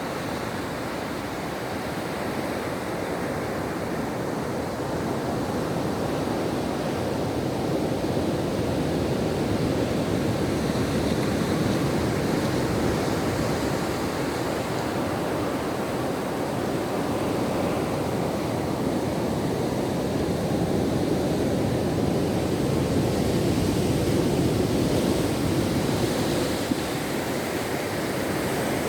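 Ocean surf washing on a shore: a steady rush of waves that swells and eases slowly, with no single crash standing out.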